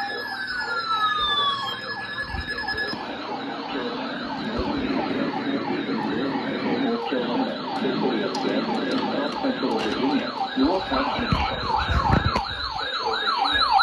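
An electronic siren alert tone sweeping up and down about twice a second, growing louder and slightly faster toward the end. Other alert tones, with steady beeps and falling sweeps, overlap it for the first few seconds.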